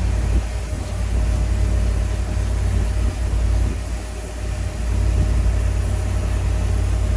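Steady low rumble that swells and dips, with a faint continuous hum above it: background noise of machinery and wind around a parked jet airliner.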